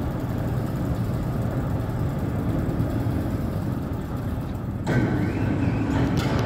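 Steady low hum of machinery running in a steel-processing hall. About five seconds in, a fainter higher whine joins.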